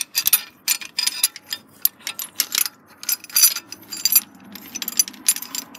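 Heavy steel lifting chain clinking and rattling by hand as it is unhooked from an engine's lifting bracket: a quick, irregular run of sharp metal-on-metal clinks.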